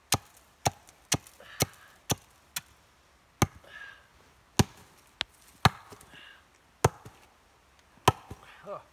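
Axe chopping into a dead-wood stake to sharpen it to a point: about a dozen sharp, unevenly spaced woody knocks, roughly one every half second to a second.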